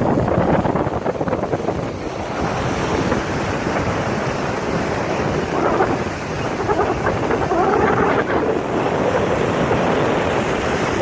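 Wind blowing on the microphone over the steady wash of ocean surf, a dense rushing noise that rises and falls.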